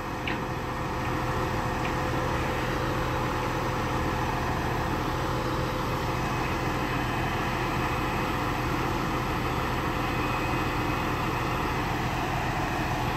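Heavy work-truck engine running steadily, with a constant low hum, a little louder from about a second in.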